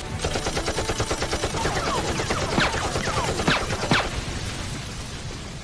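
Animated sound effect of machine-gun fire: a rapid, even run of shots, with several sharp falling whistles cutting through midway, then fading toward the end.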